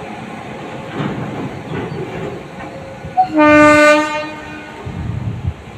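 A goods train hauled by a WAG-9 electric locomotive rumbles and clatters over the rails. A little past halfway, the locomotive's horn sounds one blast of about a second, just after a short chirp.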